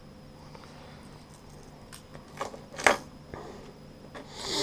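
Hard plastic fishing lures being handled: a few clicks and taps, the loudest a little before the three-second mark, then a short rustle near the end, over a steady low hum.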